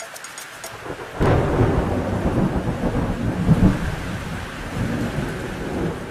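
Thunder: a sudden crack about a second in, then a long rolling rumble, with rain underneath.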